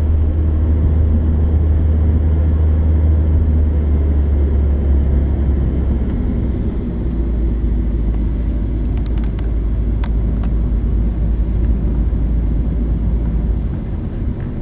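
Car cabin noise while driving at road speed: a steady low drone of engine and tyres, whose deepest part drops a little about halfway through. A few light clicks come near the two-thirds mark.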